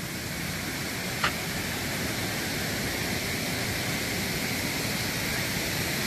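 Steady rush of waterfall and creek water, growing slightly louder, with one brief high blip about a second in.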